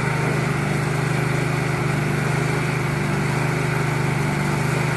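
Backhoe loader's engine idling steadily, a low even hum with a fast regular pulse, with the machine stopped.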